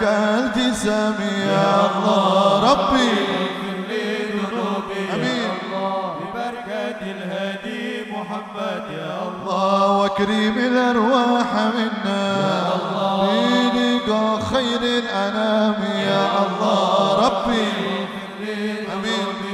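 A man's voice chanting in Arabic through a microphone and PA, in long ornamented melodic phrases, over a steady low held tone.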